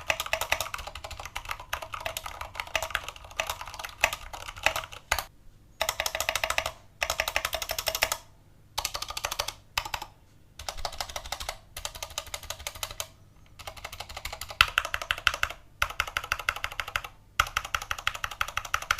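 Typing on an all-aluminium AKKO mechanical keyboard fitted with its stock Cherry switches: fast runs of key clicks in bursts, broken by several short pauses.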